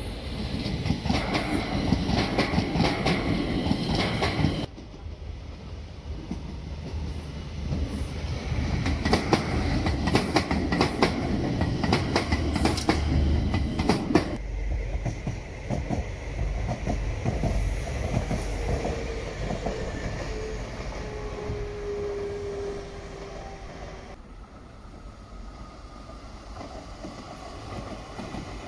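Madrid Metro 6000-series electric trains passing on the track, wheels clicking rhythmically over rail joints, in several takes that cut in and out abruptly. Later the clicking fades to a steadier rumble with a faint whine.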